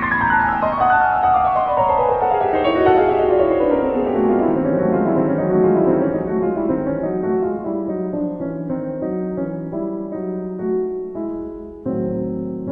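Solo piano music: a fast run of notes falling from high to low over the first few seconds, then slower single notes in the middle register, with a new chord struck near the end.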